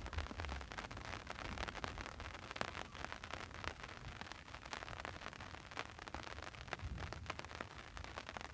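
Heavy rain falling, with many individual drops striking close by in a dense, irregular patter.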